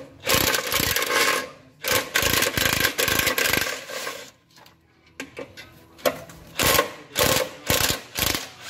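DeWalt cordless impact driver hammering in bursts as it backs out the clutch pressure plate bolts: two long runs in the first few seconds, then, after a short pause, a string of quick short bursts.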